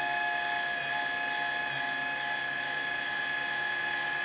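12 V linear actuator's DC motor and gearbox running with a steady whine as the screw drives the rod slowly out.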